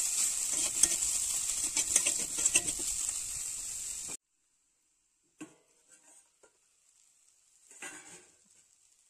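Diced mixed vegetables sizzling in oil in a metal kadai while a spatula stirs and scrapes them against the pan. The sizzle cuts off abruptly about four seconds in, leaving near silence with a few faint knocks.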